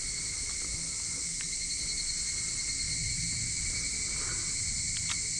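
Steady chorus of insects shrilling, with a few faint ticks.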